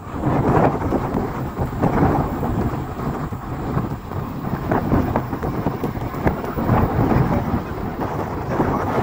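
Wind buffeting the microphone: a gusty low rumble that rises and falls throughout.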